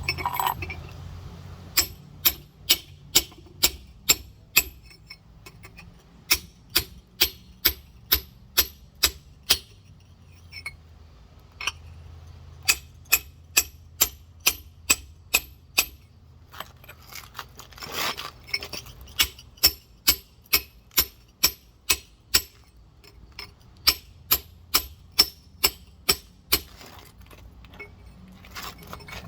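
Rock hammer tapping a large geode to score a line around it for cracking: sharp light strikes with a bright ring, about three a second, in runs broken by short pauses.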